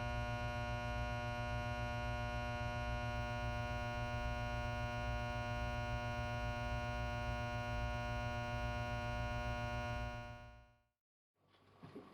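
Steady electrical hum with many overtones, unchanging in pitch, that cuts off abruptly about ten seconds in; faint, irregular rustling follows near the end.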